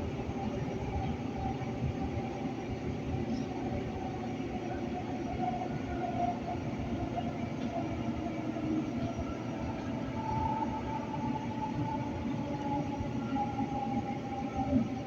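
Light rail train running, heard from inside the car: a steady rumble with faint, wavering whining tones, and a brief louder knock near the end.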